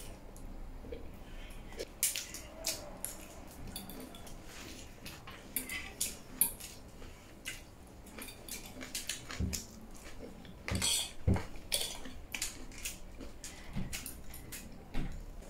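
A metal fork clinking and scraping against ceramic plates while eating chilli momo, in irregular clicks with a few soft knocks, thickest about two thirds of the way through. Close-miked eating sounds mix in.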